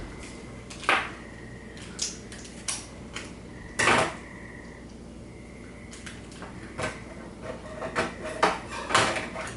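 Scattered clinks and knocks of utensils and plastic containers being handled and set down on a table, about a dozen in all, the loudest about four seconds in and near the end.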